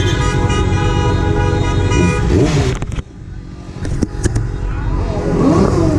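Car horns held in a long, steady blare over low engine and traffic rumble, the celebratory honking of a victory car parade. About three seconds in it cuts off abruptly, leaving quieter street noise with a few sharp clicks.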